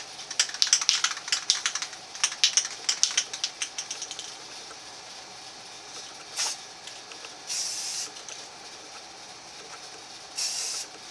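Rust-Oleum camo spray paint can shaken hard for about four seconds, its mixing ball rattling in quick clicks, then three short hisses of spray, the last two about half a second each.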